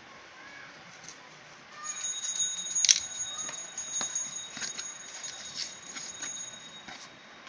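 A cardboard box being cut and pulled open by hand: a run of sharp clicks, scrapes and rustles of cardboard and tape, the loudest about three seconds in. A thin, steady high ringing tone runs under it from about two seconds in until near the end.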